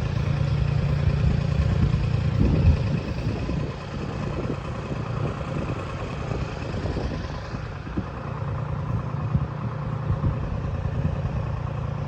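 A vehicle engine runs steadily at low speed, with some clattering and knocks about two to three seconds in.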